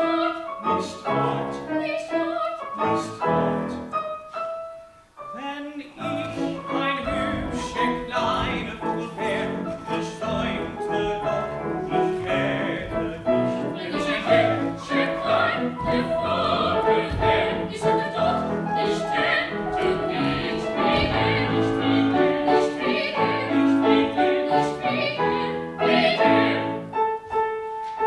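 Operatic singing in German with piano accompaniment, with a brief lull about five seconds in; near the end the piano holds sustained notes as the voice drops out.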